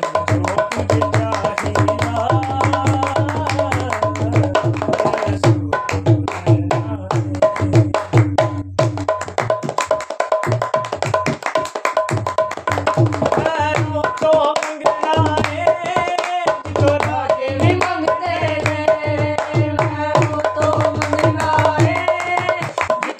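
Dholak drum played with the hands in a steady rhythm, with hand claps, accompanying men singing a Punjabi Christian worship song; the singing comes in strongly about halfway through.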